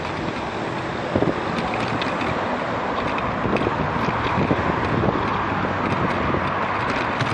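Wind buffeting the microphone of a bicycle-mounted camera while riding at about 15 km/h, mixed with road traffic running alongside. Scattered short knocks and rattles come through as the bike rolls over the path.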